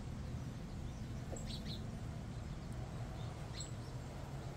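Steady low background hum with two short, faint, high bird chirps, one about a second and a half in and one about three and a half seconds in.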